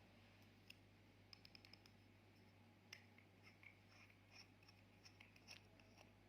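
Faint, irregular sticky clicks and small pops of slime being handled and mixed, over a steady low hum.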